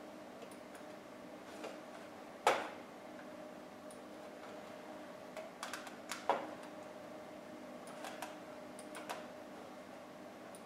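Scattered light clicks and knocks from a handheld force sensor and cart on an aluminium dynamics track. The loudest knock comes about two and a half seconds in, with a quick cluster around six seconds, over a steady low hum.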